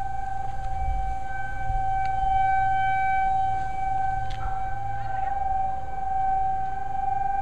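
Outdoor tornado warning siren sounding one steady, unbroken tone, the alert for a tornado warning.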